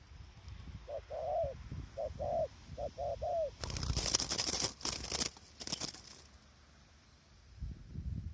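Spotted dove cooing: three short phrases of low, arched coo notes, two, two and then three notes. Then a loud rustling noise runs for about two and a half seconds.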